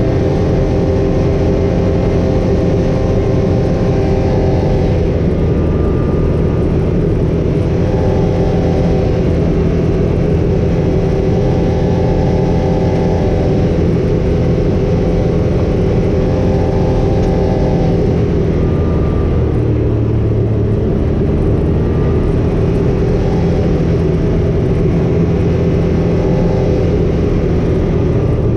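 A motor vehicle's engine and tyre noise heard from inside the cabin while driving, a steady hum whose engine tone shifts about two-thirds of the way through.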